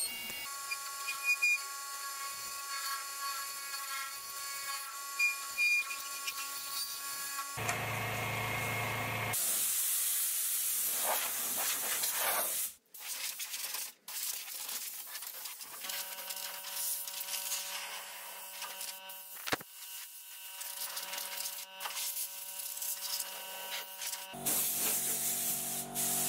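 Robust wood lathe running with a steady whine while a turning tool cuts the spinning wooden blank, giving a rushing hiss of shavings. The sound jumps abruptly several times, with two brief dropouts, where the footage is cut between takes.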